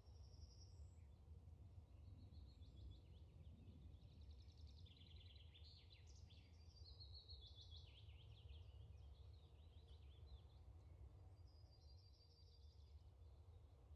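Near silence: a low rumble of room noise, with faint bird chirps and trills in the background that are busiest in the middle.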